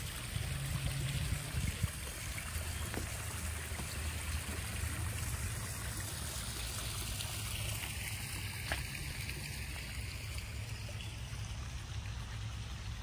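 Small backyard pond waterfall spilling over stacked stones into a koi pond: a steady trickling, splashing water sound, with a few light knocks near the start.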